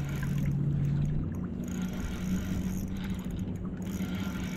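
Low, steady hum of a distant motor, stepping up to a higher pitch about a second and a half in.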